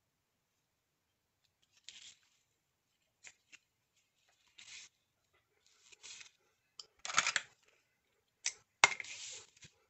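Paper being handled: fingers rub and press a glued cardstock strip onto a paper envelope, making short dry rustles every second or so. The rustle grows louder about seven seconds in, and a sharp click with more rustling comes near the end.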